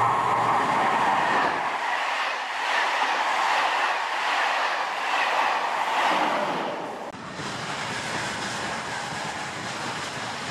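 A push-pull passenger train with a BB 22200 electric locomotive pushing at the rear passes close by, a steady rolling and rushing noise that swells and fades. About seven seconds in it changes abruptly to a thinner, even rushing of a TGV Duplex going by on the high-speed line.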